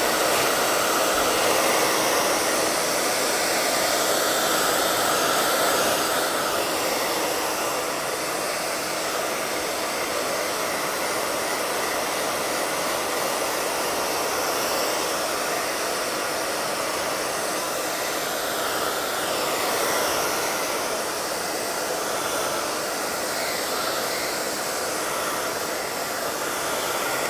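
Handheld hair dryer running steadily, a continuous rushing blow of air.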